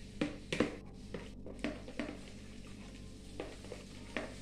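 A utensil scraping and knocking inside a plastic mixing bowl as the last of a creamy mixture is scraped out: about seven irregular scrapes and taps, over a low steady hum.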